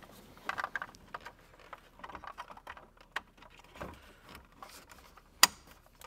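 Hands handling plastic dash trim and wiring connectors around the shifter: scattered small clicks and rustles, with one sharp snap near the end.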